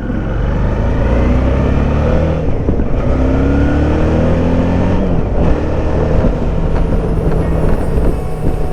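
Suzuki V-Strom's V-twin engine heard while riding, pitch rising a couple of times as the bike accelerates, over a steady rush of wind and road noise on the microphone.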